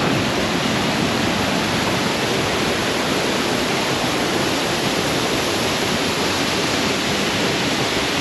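Steady, loud rush of water from a waterfall and a fast rain-swollen river, an even unbroken noise.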